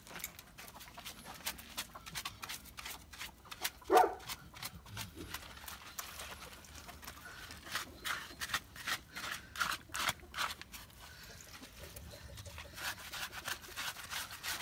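Cane Corso being washed: irregular rubbing and scuffing noises from handling and scrubbing its wet coat, with one short, loud dog vocalization about four seconds in.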